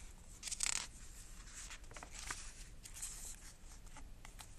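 A page of a hardcover picture book turned by hand: one paper swish about half a second in, then light rustling and soft taps as the spread is smoothed flat.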